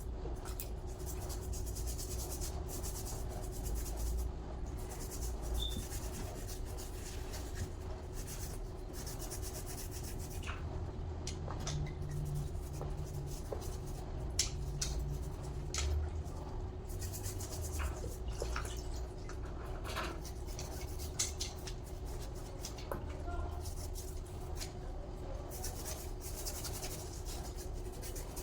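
Scattered small clicks, taps and rubbing of parts and tools being handled, over a steady low hum.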